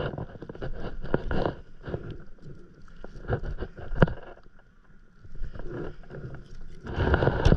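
Handling noise from a plastic hand-line winder as fishing line is unwound from it: irregular rubbing and rustling, with a sharp click about four seconds in and a louder rustle near the end.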